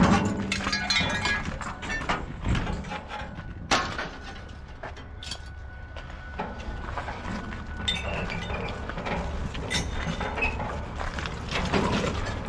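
Scattered knocks and clinks of scrap metal being handled, with one sharper knock about four seconds in.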